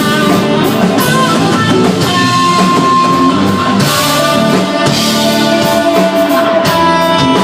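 A live stoner rock band playing loud: electric guitar holding long sustained notes over bass and a drum kit, with cymbals washing in about halfway through.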